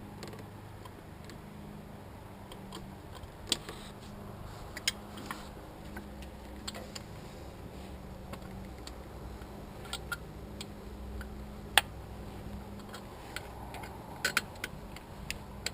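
Scattered sharp clicks and clinks of hand tools on metal, irregularly spaced, the loudest a single clink about twelve seconds in and a quick few near the end, over a steady low hum.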